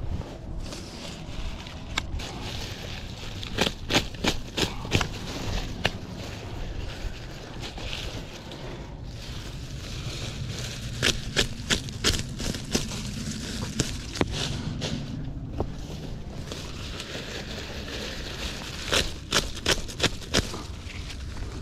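Pocket knife cutting through handfuls of dry, dead flax lily leaves: clusters of crisp snaps and crackles, three bursts spread across the stretch, with dry leaves rustling and a steady low rumble underneath.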